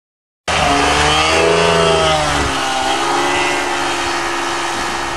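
Light ski plane's propeller engine running at high power as it sets off across the snow, after half a second of silence. The engine note swells and bends in pitch about a second in, then settles into a steady drone that slowly fades as the plane moves away.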